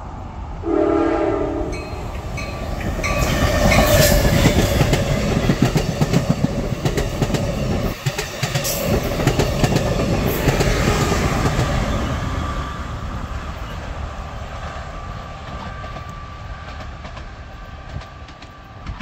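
A train horn sounds one short blast about a second in. A train then passes close by at speed, its wheels clattering over the rail joints. The pass is loudest about four seconds in and fades away over the following seconds.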